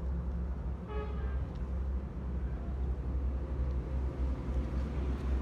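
Steady low rumble of background traffic, with a short vehicle horn toot about a second in.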